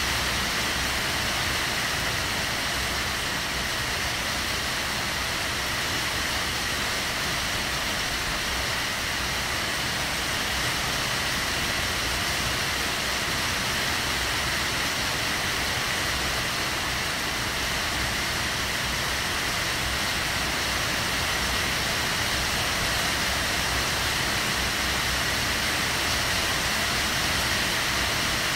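Heavy rain pouring steadily, an even, unbroken hiss.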